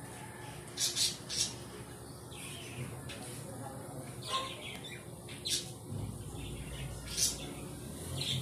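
Birds chirping: short, high calls, a quick run of three about a second in, then single chirps spread through the rest, over a low steady hum.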